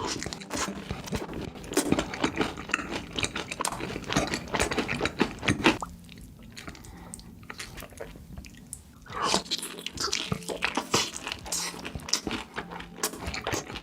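Close-miked mukbang eating: crunchy bites and wet chewing in quick, irregular clicks, easing off for a few seconds in the middle before picking up again.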